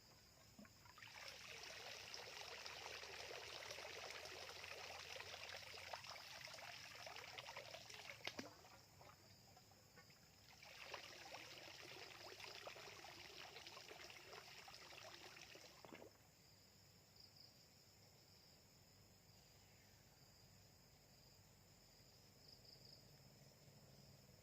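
Water trickling and sloshing in two stretches, the first about seven seconds and the second about five, as a bamboo eel trap is set in flooded paddy water. Insects trill faintly throughout.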